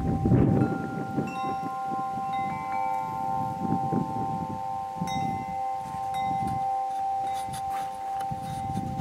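Tubular metal wind chimes ringing, several notes struck one after another and each ringing on so they overlap, over a low, uneven rumble.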